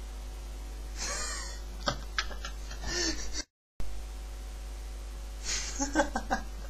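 Two breathy exhales or stifled laughs from a person close to a webcam microphone, each with a few sharp clicks, over a steady low electrical hum. The audio drops out completely for a moment in the middle.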